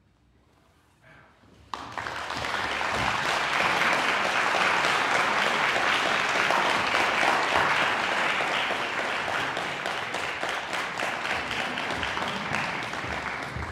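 Near silence, then audience applause breaks out suddenly about two seconds in and continues steadily, easing off slightly near the end.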